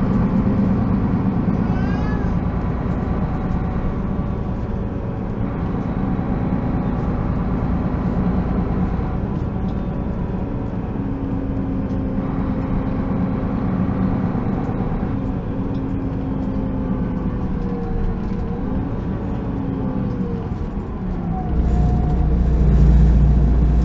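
Solaris Urbino 12 city bus heard from inside while driving: engine and drivetrain running steadily, with a whine that glides down and back up in pitch. Near the end a louder deep rumble comes in.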